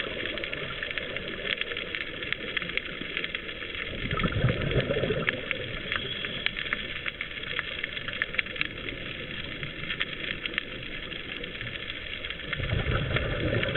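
Underwater sound picked up by a diver's camera: a steady crackle of tiny clicks, broken by two louder low rushes of scuba exhaust bubbles, about four seconds in and again near the end.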